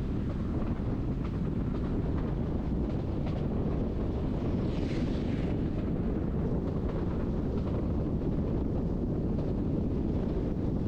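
Steady low running rumble of a Bernese Oberland Railway train in motion, heard from inside the carriage, with a brief hiss about halfway through.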